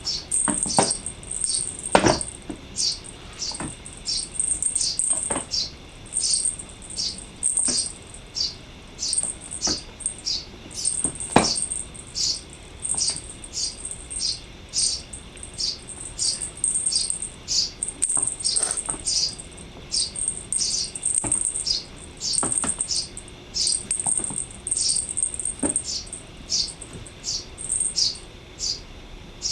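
Small birds chirping over and over, short high calls repeating about twice a second without a break. A few sharp taps sound now and then, the loudest about two seconds in and again near eleven seconds.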